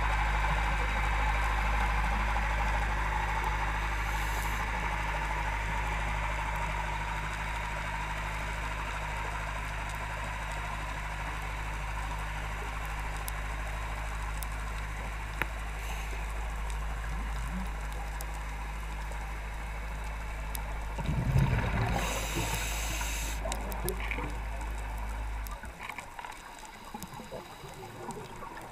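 Underwater sound through a camera housing: a steady low hum and hiss, broken about three quarters of the way through by a louder, bubbling rush typical of a scuba diver exhaling through a regulator. The low hum stops shortly after.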